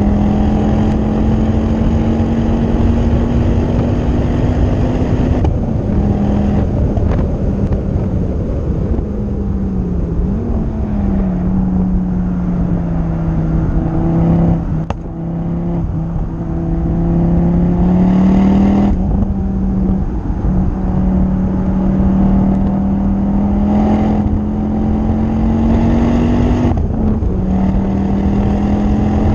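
Ford Focus ST's 2.5-litre turbocharged five-cylinder engine pulling hard on track. Its note climbs under acceleration and drops sharply at three upshifts. Midway it sinks slowly while the car slows through a corner, with a brief lift of the throttle, then climbs again. Wind rushing steadily underneath.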